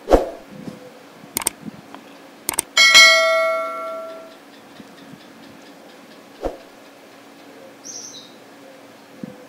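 A bell chime sound effect, from a subscribe-button animation, rings out about three seconds in and fades over a second and a half. Around it come a few knocks and taps as tempe slices are pressed into a wet marinade on a clay mortar plate and handled from a plastic tub, the loudest knock at the very start.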